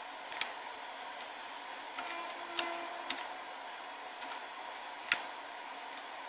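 Keys of a Casio scientific calculator being pressed: about seven short, separate clicks, irregularly spaced.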